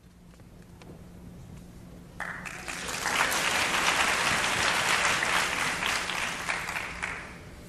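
Audience applauding. The clapping starts suddenly about two seconds in, swells, and dies away near the end.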